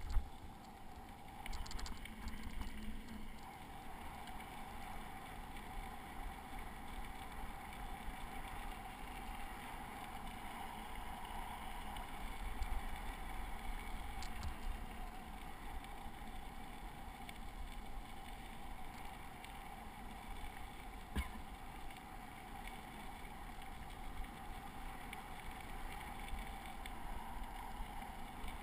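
Bicycle rolling steadily along a packed gravel and dirt trail: continuous tyre and ride noise with a low rumble, and a single sharp knock from a bump about two-thirds of the way through.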